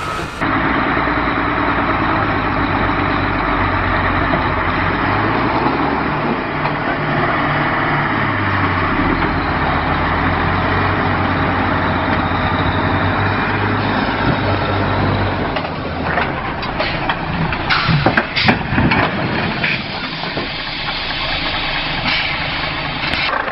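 Heavy truck's diesel engine running, its pitch stepping up and down as the load changes. In the last third there is a cluster of sharp knocks and bangs.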